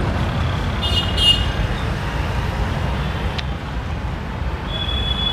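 Roadside traffic noise: a steady low rumble of passing road traffic. A short high-pitched horn toot comes about a second in, and a steady high tone begins near the end.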